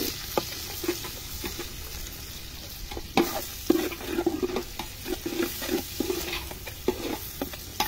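A metal ladle stirring and scraping through beef, onion and garlic frying in oil in a metal pot, with a faint sizzle under irregular scraping and clinking strokes and a couple of sharper knocks against the pot about three seconds in.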